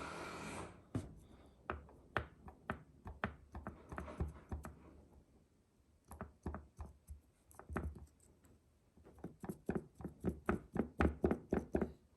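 A brief rustle, then an irregular run of light taps and knocks from hands fitting a paper cutout into a plastic magnetic tile and pressing it down. The knocks come thickest in the last few seconds.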